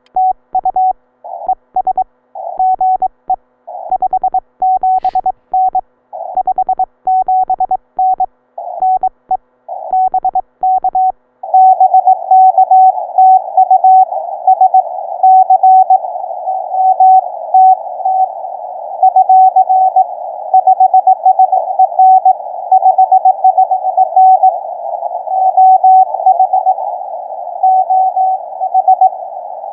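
Morse code tones of about 700 Hz from a Ten Tec Eagle transceiver. For the first eleven seconds it is the clean keyed sidetone of the operator sending, with silence between the characters. Then the receiver opens to a narrow band of hiss through the CW filter, with another station's Morse code keyed in it.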